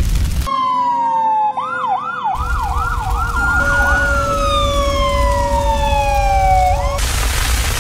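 Electronic fire-truck siren from a toy RC fire truck: a falling tone, then a fast up-and-down yelp, then a long slow falling wail, cutting off about seven seconds in. A steady hiss fills the rest.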